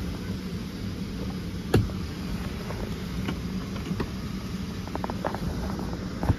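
Steady hum and rush of a Boeing 737-700's cabin air system. There is a sharp knock about two seconds in and a few lighter clicks near the end.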